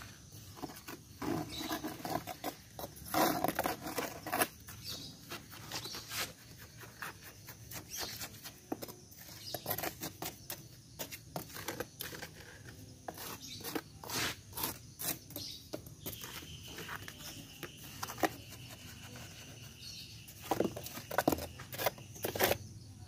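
A metal spoon scraping and tapping on wet cement mortar and its sheet-metal mould as the surface is smoothed: irregular short scrapes and clicks. A thin steady high tone joins about two-thirds of the way through.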